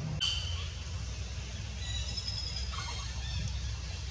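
Outdoor ambience: a steady low rumble with scattered short, high-pitched chirps.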